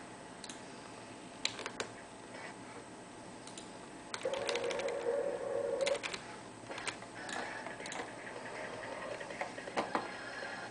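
Scattered, irregular clicks from a computer mouse and keyboard. A steady tone sounds for about two seconds in the middle.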